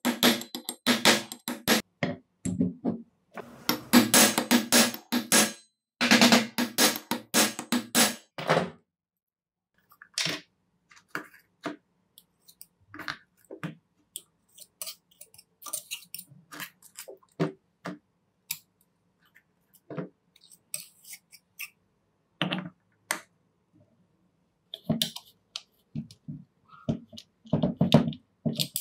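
Background music with a steady beat for the first nine seconds or so. Then a string of scattered clicks, taps and knocks as small tool parts are handled and fitted by hand.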